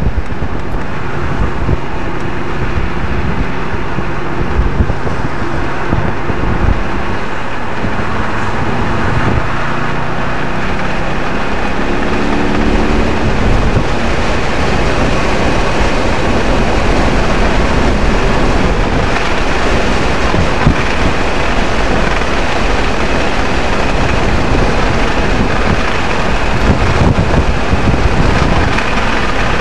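Audi RS 4's V8 engine under track driving, heard from inside the cabin, with wind and tyre noise. The engine pitch rises about twelve seconds in as the car accelerates, and road and wind noise fill in more over the second half.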